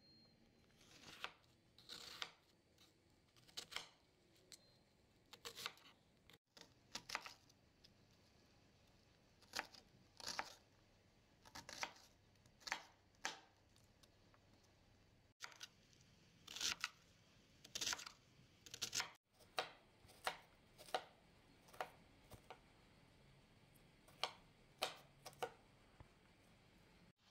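Kitchen knife dicing a peeled onion on a glass cutting board: irregular sharp knocks of the blade striking the hard board, about one or two a second.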